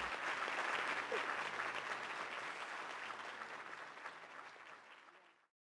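An audience applauding. The clapping slowly fades, then cuts off suddenly near the end.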